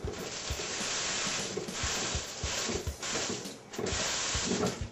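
Kitchen faucet running into a stainless steel sink, the stream splashing over hands being washed under it, with a brief lull about three and a half seconds in.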